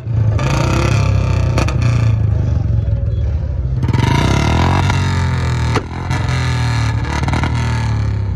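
Royal Enfield Bullet motorcycle engine running at idle, with background music over it.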